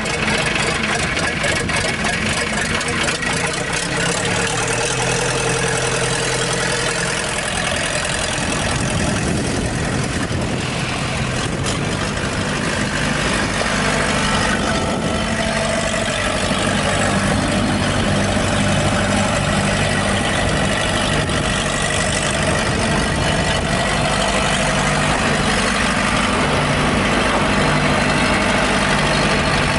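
Case 1845 skid steer engine running steadily at idle, its note shifting slightly about eight seconds in.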